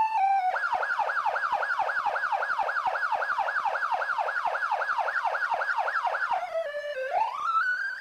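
Police siren pitch-corrected with Auto-Tune. It opens with a short falling run of stepped notes, then switches to a fast yelp of about four sweeps a second. Near the end it drops to a low tone that glides slowly up into a high wail.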